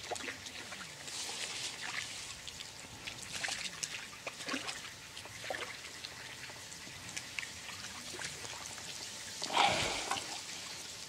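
Light splashing and trickling water as a hooked crucian carp is played and drawn in at the surface, with a louder burst of splashing near the end.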